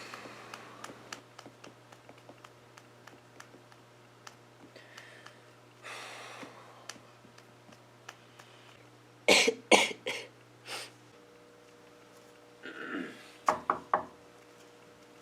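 A man coughing hard in short fits: four coughs in quick succession about nine seconds in, then a rasping throat-clear and three more coughs near the end.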